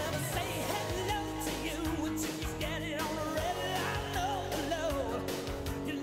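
Background song with a singing voice over a steady beat.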